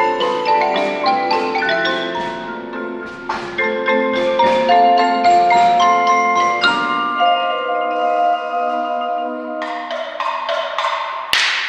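Percussion ensemble playing a festive tune on mallet instruments: a stream of struck, ringing pitched notes, some held and overlapping, with one loud sharp hit near the end.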